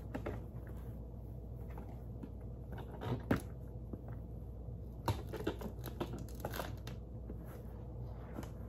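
Faint handling noises as the crawling animatronic Halloween prop is touched and adjusted: scattered light clicks and rustles, the sharpest about three and five seconds in, over a steady low hum.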